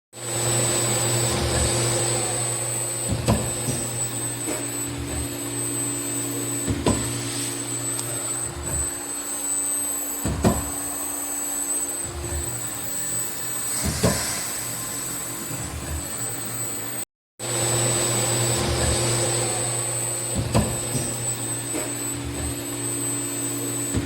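Fanuc servo amplifier test setup running: a steady fan-like whir with a low hum and a high-pitched whine, and a sharp knock about every three and a half seconds. The sound cuts out briefly about two-thirds of the way through.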